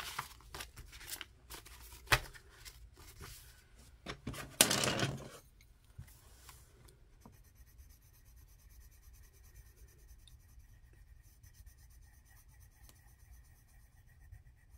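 Paper bills and a clear plastic binder pouch being handled: rustling and clicks, with a sharp tap about two seconds in and a louder rustle around the fifth second. Then the faint, steady scratching of a pencil shading squares on a paper savings tracker.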